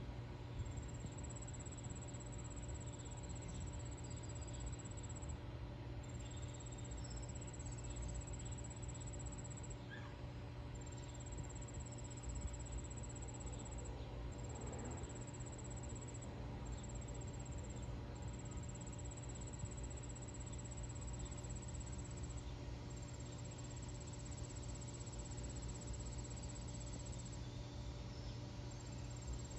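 Insects trilling outdoors in one high, steady tone, broken by short gaps every few seconds, over a steady low hum.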